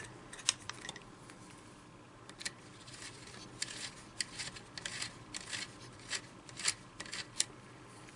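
Irregular light clicks and scrapes of an Allen key and a small metal pick working a screw into a polymer Magpul AK stock.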